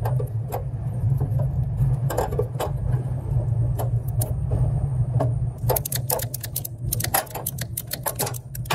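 Metal clicks and rattles of hand tools working the lugs of an electrical meter socket, scattered at first and coming thick and fast in the last few seconds, over a steady low rumble.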